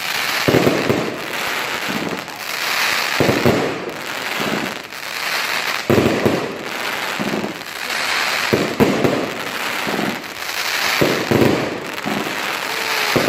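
Consumer firework cake firing: about a dozen launch thumps at uneven spacing, some in quick pairs, with continuous crackling from the bursting stars overhead.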